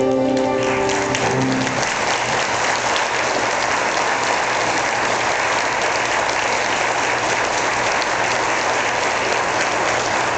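A choir's final held chord dies away about two seconds in as the audience breaks into applause, which then goes on steadily.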